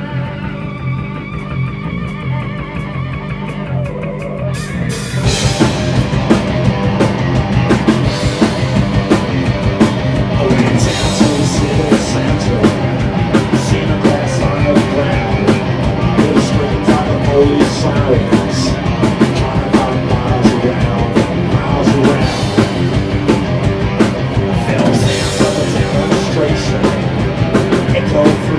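Live rock band playing: electric guitar and bass open the song, then the drum kit and full band come in about five seconds in, with a fast, driving punk-rock beat and crashing cymbals.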